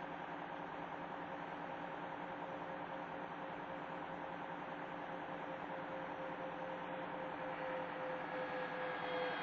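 Steady mechanical hum and whine over a hiss, with one tone sliding slowly down in pitch; it grows a little louder near the end.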